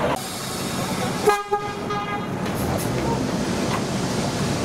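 Diesel shunting locomotive's horn sounding one short single-note toot, about a second long, a little over a second in.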